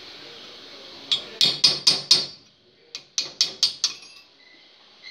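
Hammer blows on a steel punch set against a valve seat in a cylinder head, knocking the seat out: two quick runs of about five sharp, ringing metallic strikes each.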